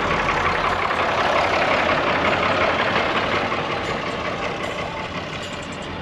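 A vehicle driving slowly, heard from inside the cabin: steady engine hum and road noise, getting a little quieter toward the end.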